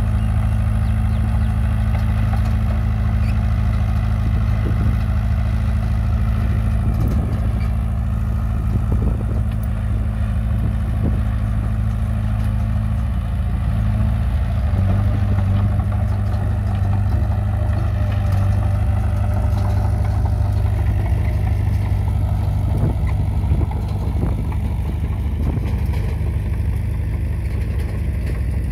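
Caterpillar bulldozer's diesel engine running steadily, its note shifting slightly about halfway through, with a few faint clanks.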